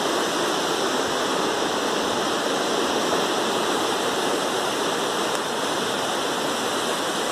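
Steady rushing of a river flowing below a railway bridge, an even noise that does not change.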